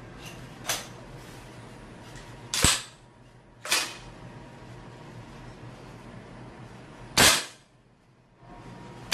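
VFC Colt MK18 MOD1 gas blowback airsoft rifle firing single shots: a faint click under a second in, then four sharp cracks of the bolt cycling, irregularly spaced one to three and a half seconds apart.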